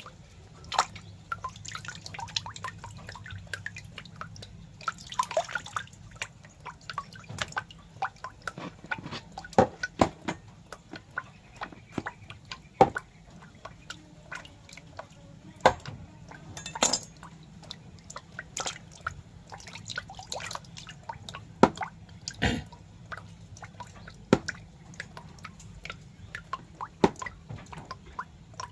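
Irregular wet clicks and drips, a few each second and uneven in loudness, over a faint low steady hum.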